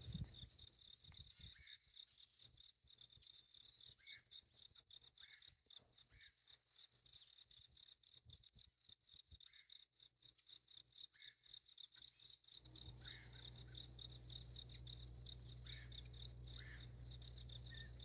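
Near silence outdoors, with a faint, steady, high-pitched trill of insects and a few faint short chirps. A low rumble comes in about two-thirds of the way through.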